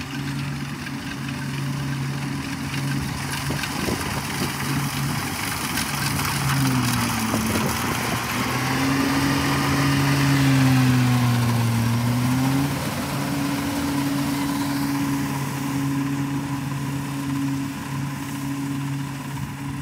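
Kubota rice combine harvester's diesel engine running steadily while harvesting, loudest near the middle as the machine passes close. About a third of the way in its pitch dips and climbs back over several seconds.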